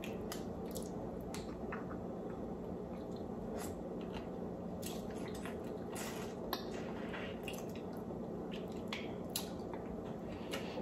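Small wet clicks and squishes of sauce-covered seafood-boil shellfish being peeled by hand and eaten from the fingers, scattered irregularly over a steady low hum.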